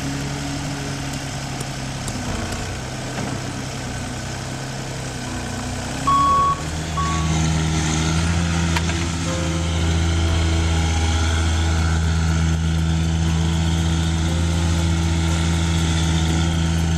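Diesel engine of a Volvo compact wheel loader running steadily. About six seconds in, two short backup-alarm beeps, then the louder, deeper steady running of a Bomag double-drum roller compacting fresh binder asphalt.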